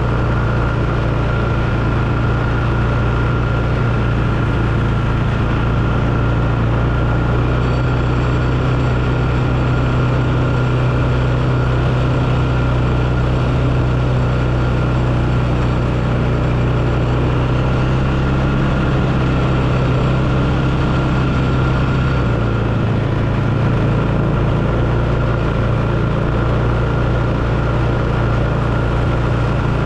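Four-wheeler (ATV) engine running steadily while riding along a woodland trail; its note shifts slightly about three-quarters of the way through.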